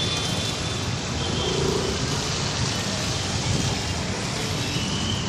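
Steady road traffic noise from vehicles on a bridge.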